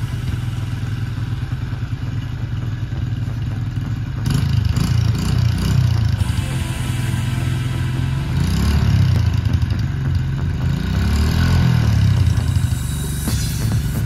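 Small children's dirt bike engine running, getting louder about four seconds in, with its pitch rising and falling twice in the second half as the throttle is blipped.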